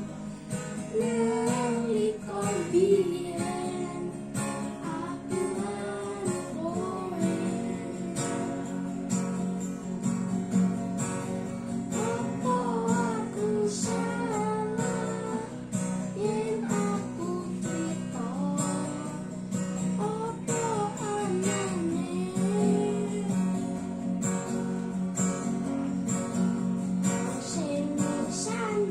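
A solo voice singing a melody over strummed acoustic guitar.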